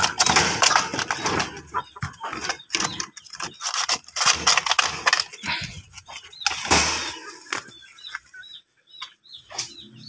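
A caged bird flapping its wings against a wire cage while it is caught by hand, in a run of irregular scuffles and knocks with one loud flurry near the middle.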